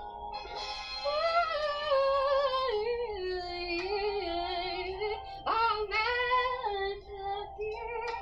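A young woman singing solo into a handheld microphone over an accompaniment of sustained chords; her voice comes in about half a second in with long held notes that waver and glide.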